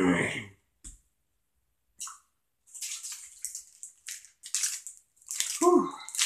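Wet chewing and lip-smacking of a mouthful of Sour Patch Kids gummy candy close to the microphone, as irregular smacks and clicks, with a short vocal sound at the start and another near the end.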